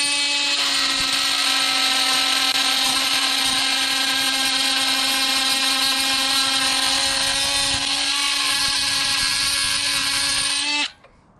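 Dewalt DCS356 brushless oscillating multi-tool with its bimetal blade cutting through galvanized steel unistrut: a steady buzzing tone with a grinding rasp over it, which cuts off suddenly near the end.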